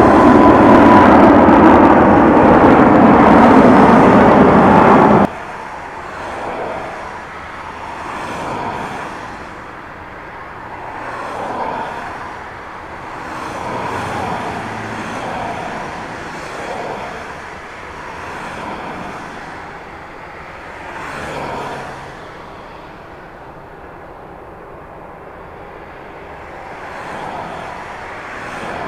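Airbus A380's four jet engines at take-off thrust during the climb-out: a loud, dense roar with a slowly falling whine. It cuts off abruptly about five seconds in, leaving much quieter distant jet and traffic noise that swells and fades every couple of seconds.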